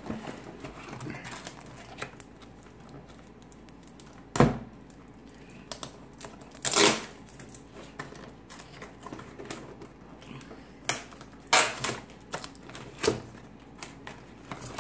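Scattered clicks, knocks and rustles of a camera tripod and its carrying case being handled, with a sharp knock about four seconds in the loudest and a short rustle a few seconds later.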